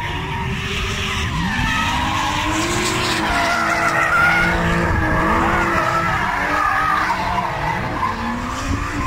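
Two drift cars sliding through a corner, their engines revving up and down hard in repeated sweeps while the tyres skid and squeal, loudest about four seconds in.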